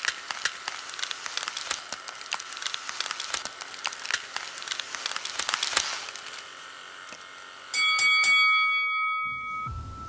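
Dense crackling and hissing for about six seconds, then a bright ringing chime that starts about three-quarters of the way in and fades away.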